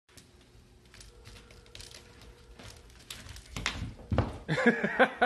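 A cat dropping from a plastic pet playpen onto a wooden floor: faint clicks, then two low thumps about three and a half and four seconds in. A person's voice follows near the end and is the loudest sound.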